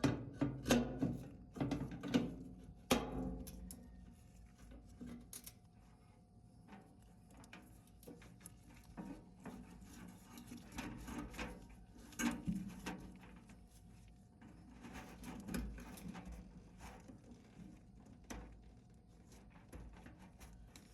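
Clunks, clicks and rubbing of dryer parts and panels being handled during reassembly, with a quick run of loud knocks in the first few seconds and sparser knocks after that.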